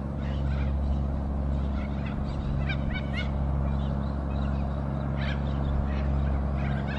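Mack B-61 diesel truck engine running steadily as the truck rolls slowly along. A few short high chirps come about three seconds in.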